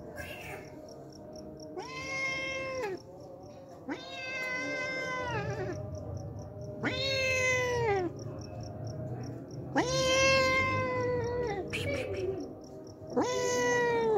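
Tabby-and-white stray cat meowing repeatedly: five drawn-out meows, each a second or two long and dropping in pitch at the end, about every two to three seconds. It is a hungry cat begging for food.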